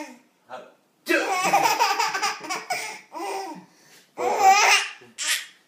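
A man sneezes about a second in, and a baby breaks into laughter right after. The baby laughs again in a second loud burst near the end.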